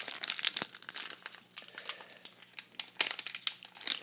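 Hands crinkling and tearing at the plastic wrapper of a trading-card pack, a run of irregular crackles while struggling to get it open.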